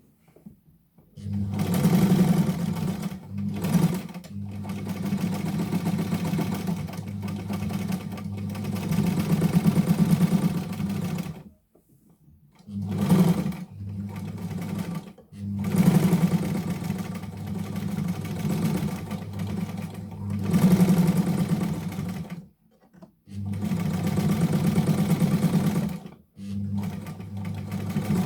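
Novum straight-stitch sewing machine running in bursts of stitching, starting about a second in. Its speed rises and falls, and it stops briefly several times between runs.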